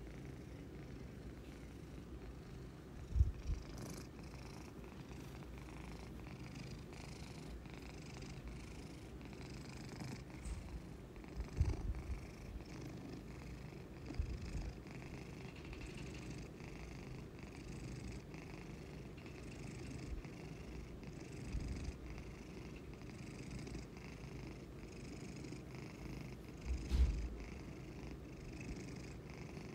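Domestic cat purring steadily close up, the purr pulsing about once a second with its breathing. A few soft low thumps break in, the loudest about three seconds in and near the end.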